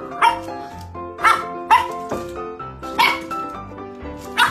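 Puppy yapping at its own reflection in a mirror: about five short, high barks at irregular intervals over background music.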